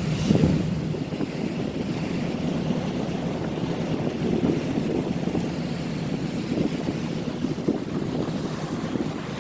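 Tugboat engine running underway, with wind buffeting the microphone; a loud gust hits just after the start.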